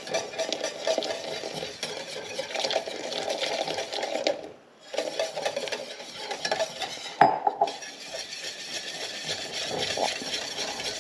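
A utensil stirring thickening coconut pudding in a pot, scraping around the pot with small clinks. The stirring stops briefly about halfway, and a sharp clink against the pot comes a little later.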